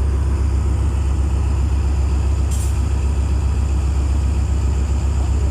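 Diesel locomotive engine running at idle, a steady deep rumble. About two and a half seconds in there is a short sharp hiss of released air.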